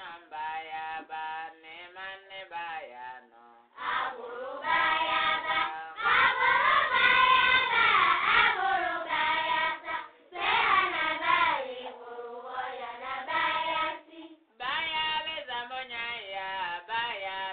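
High-pitched singing of a devotional chant, sung in long melodic phrases with short breaks between them.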